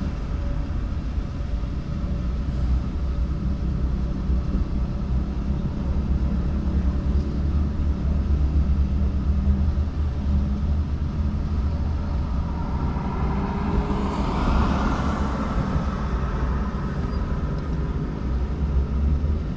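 Steady low motor-vehicle rumble, with a louder hissing swell of passing traffic about two-thirds of the way through.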